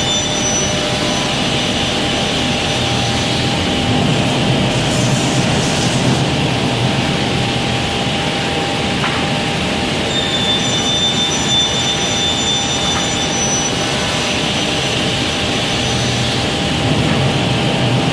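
Holz-Her horizontal beam saw and its dust extraction running: a loud, steady rushing hum with a high whine that comes in for a few seconds at the start and again about ten seconds in.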